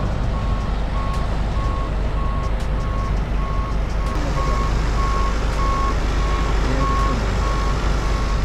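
A vehicle's reversing alarm beeping steadily, about two high beeps a second, over a steady low vehicle rumble.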